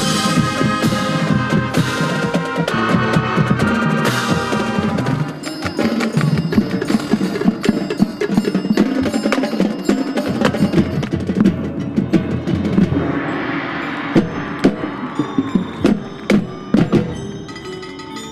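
Marching band playing: the full band holds loud chords for about the first five seconds, then the percussion section carries on alone with wood block, drum and mallet-percussion strikes.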